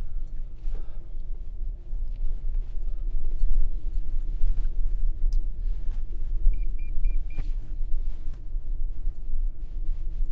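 Low, steady rumble of a 2024 Toyota Tundra creeping down a rough dirt trail, heard from inside the cab, with faint knocks from the rough track. Past the middle comes a quick run of four short high beeps from the truck's proximity sensors warning of the grass beside it.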